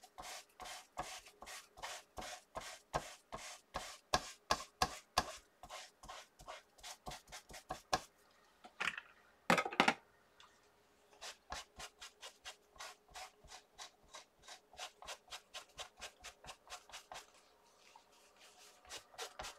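Microfiber cloth rubbing back and forth over an inked stamp on a clear acrylic stamping plate, wiping the ink off, in quick strokes about four a second. Halfway through there is a louder brief scrape, then the rubbing goes on more faintly.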